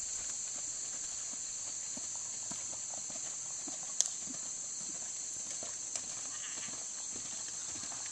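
Hoofbeats of a Thoroughbred horse trotting on a sand-and-gravel arena, a light irregular patter of ticks, under a steady high hiss. A single sharp click sounds about four seconds in.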